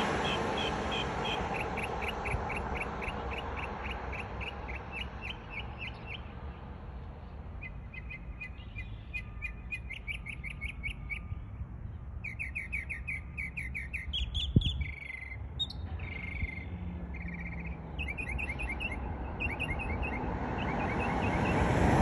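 Mockingbird singing a string of different phrases, each a rapid run of repeated high notes, switching to a new mimicked sound every few seconds. Passing traffic hums under it near the start and the end.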